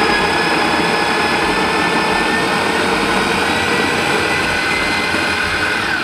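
Bodum Bistro electric burr grinder running, its high-speed motor giving a steady whine as the stainless steel conical burrs grind a few coffee beans on a medium setting.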